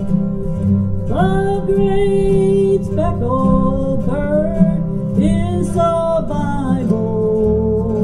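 A woman singing a country gospel song into a microphone over strummed acoustic guitar; her voice comes in about a second in and holds long notes.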